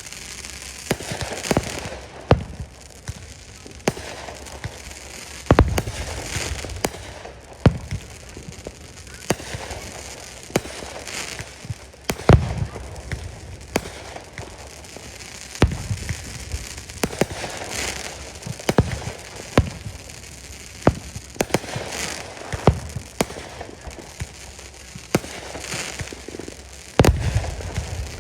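Aerial fireworks going off in quick succession: sharp bangs and deep booms from bursting shells, with crackling between them. The heaviest booms come about five and a half seconds in, twice near the middle, and near the end.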